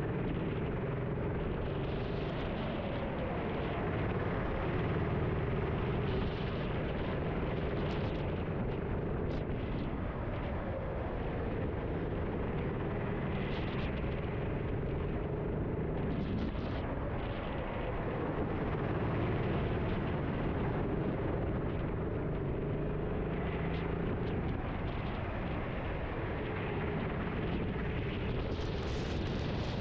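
Racing kart engine heard onboard, its pitch repeatedly rising and falling as the driver accelerates and lifts through corners, over a steady hiss of wind and wet track.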